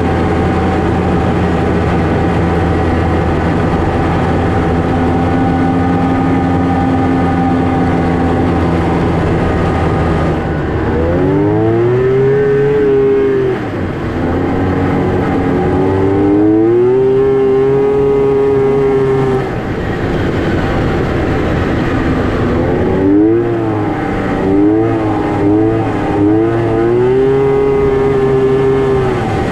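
Snowmobile engine running steadily at low revs, then from about ten seconds in revving up three times, each time rising in pitch and then holding a steady high pitch as the sled pulls away.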